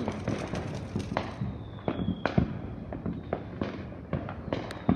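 Ground fountain firework burning, with a steady run of irregular crackles and pops and a faint high whistle twice; one sharper pop near the end.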